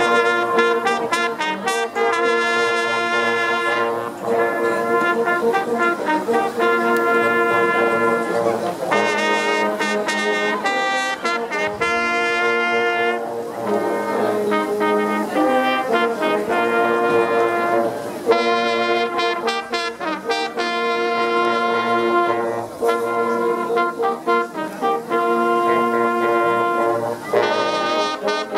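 A brass band of trombones, trumpets and a tuba playing a slow tune in held chords, phrase by phrase, with short breaks between phrases every few seconds.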